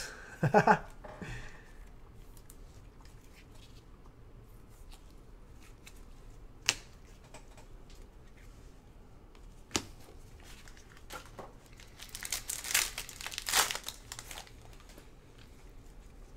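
A foil pack of Panini Prizm football cards being torn open and crinkled, loudest for about two seconds near the end, with a couple of sharp clicks before it.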